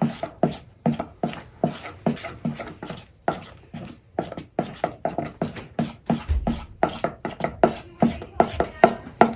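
Utensil stirring a thick mix of glue, cornstarch and food colouring in a bowl, knocking against the bowl about three times a second.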